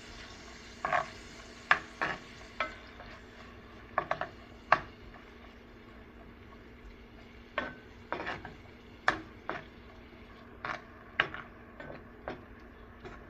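Spatula stirring onions and ginger garlic paste frying in butter and oil in a pan: about a dozen irregular scrapes and knocks against the pan over a steady sizzle.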